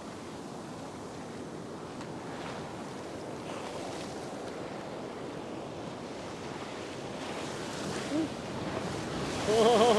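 Ocean surf breaking and washing in the shallows, with wind on the microphone. Near the end comes a short, loud, wavering voice-like call.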